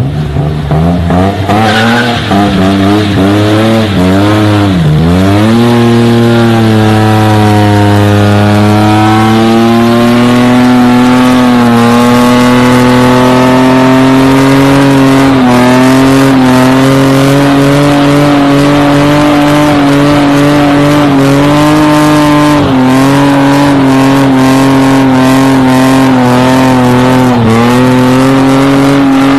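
BMW E34 5 Series engine revving hard during a burnout, with the rear tyres spinning and squealing. The revs rise and fall several times in the first five seconds, then hold high and steady with a few brief dips.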